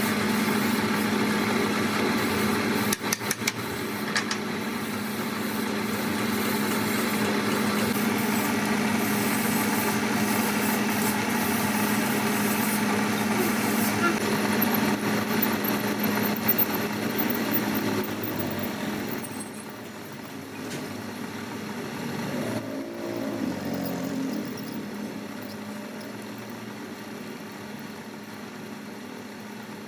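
A workshop machine's motor running steadily, a hum with hiss over it. It drops off and quietens about two-thirds of the way through.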